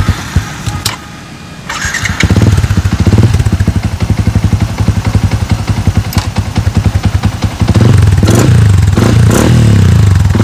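A big-bore (62) Yamaha Exciter 150 motorcycle engine on its stock exhaust starts about two seconds in after a few clicks, idles with a pulsing beat, then is blipped in short light revs near the end. The pod air filter's intake noise is louder than the exhaust.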